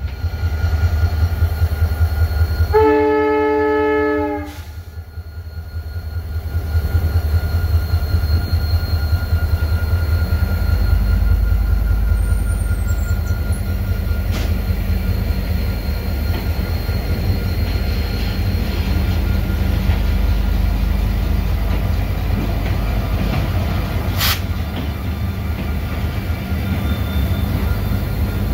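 A train horn sounds once, a chord of several tones held about a second and a half, heard from a moving train. After a short lull comes the steady low rumble of diesel-electric locomotives at a station, with an EMD GL18B pulling a passenger train out, and a single sharp click about two-thirds of the way through.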